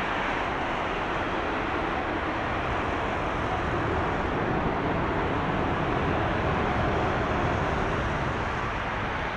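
Airbus A320 jet engines: a steady rushing roar that swells slightly in the middle.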